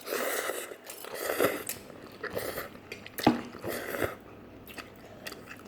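Person chewing Buldak fire noodles, with wet mouth sounds and several sharp clicks.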